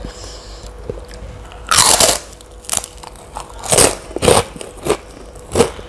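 Biting into and chewing a crisp kerupuk Kediri cracker dipped in peanut sambal: one loud crunch nearly two seconds in, then a run of sharp crunches about every half second to a second as it is chewed.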